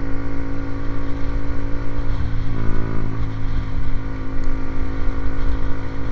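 Motorcycle fitted with an aftermarket racing exhaust, the engine running at a steady speed with a rough, fluttering low rumble.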